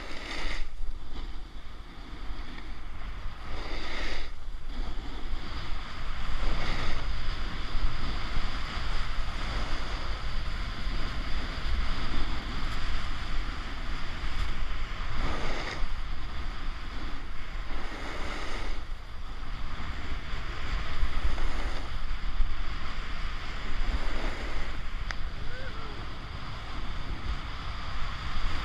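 Wind buffeting a body-mounted action camera's microphone as a snowboard slides down a groomed run. The board's edge scrapes across the snow, swelling every few seconds with the turns.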